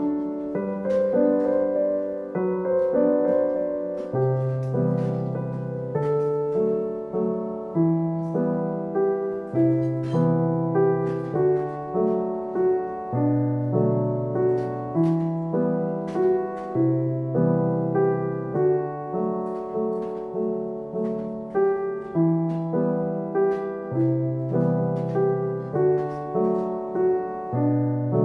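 Background piano music: a calm, even pattern of notes struck about once a second over a slowly changing bass line.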